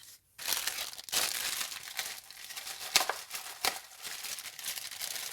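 Crinkling and rustling as artificial flowers are handled, starting about half a second in, with a couple of sharp clicks or snaps partway through.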